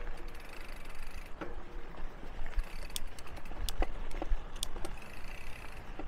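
Mountain bike rolling slowly on a dirt trail: steady tyre noise on the gravel with a handful of sharp clicks and rattles from the bike, over a low rumble.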